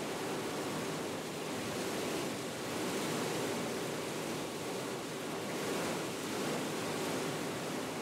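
Combine harvester running while harvesting, heard as a steady rushing noise with a faint steady hum, as shelled corn fills its grain tank.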